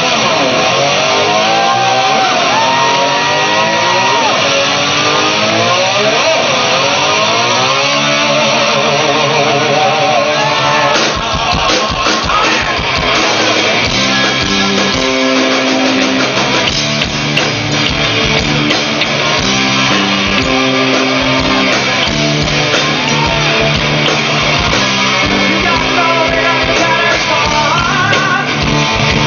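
Live rock band playing: electric guitars with gliding, bending notes, then about eleven seconds in drums and bass come in and the full band plays on.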